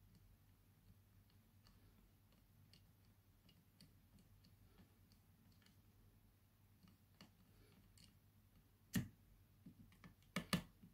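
Faint scattered ticks and small clicks of a DSO138 oscilloscope kit's trimmer capacitors being adjusted by hand, with one sharper click about nine seconds in and a few more near the end.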